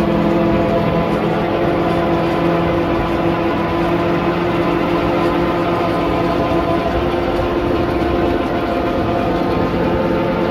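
John Deere tractor driving an Agola rotary tiller through dry soil: a steady drone of the engine, driveline and spinning rotor with a few humming tones, over the rush of soil being churned.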